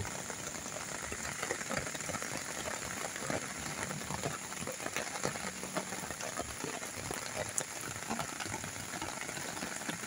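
Steady rain falling, an even hiss with faint scattered ticks of drops.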